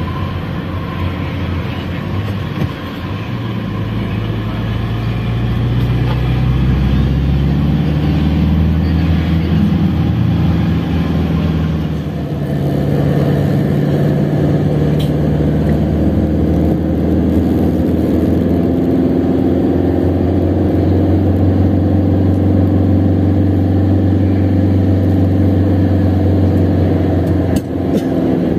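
Toyota Hiace van's engine heard from inside the cab while driving, with road noise. Its pitch climbs over the first several seconds, drops with a brief dip in loudness about twelve seconds in, then climbs again and holds steady.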